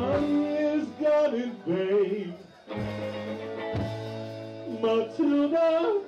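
Live band playing a song: a man singing over electric guitar, with a bass line underneath.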